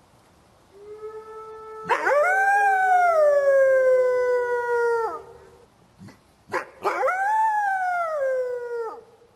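Wolf howling: two long howls, each sweeping up and then sliding slowly down in pitch, the first with a second, steadier and lower howl beneath it.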